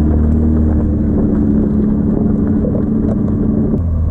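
Small gas golf cart engine running steadily, its tone thinning and dropping a little about four seconds in.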